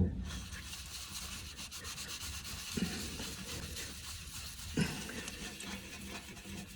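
Damp paper towel dipped in wood ash scrubbed in circles on the glass door of a Quadra-Fire wood-burning stove insert, a steady rubbing noise as caked-on tar is worked off. A thump at the start and two lighter knocks about three and five seconds in.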